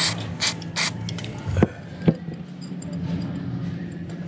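A few short squirts of aerosol carburettor cleaner sprayed into a carburettor float bowl to soak off varnished fuel, then two sharp knocks about half a second apart, then faint light ticking as a ratcheting spanner is worked.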